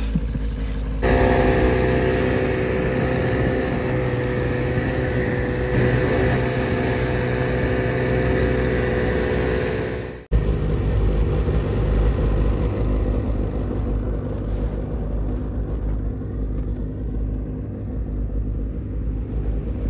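Vehicle engine running steadily, a continuous drone broken by two abrupt cuts, about a second in and about ten seconds in, after which the sound changes.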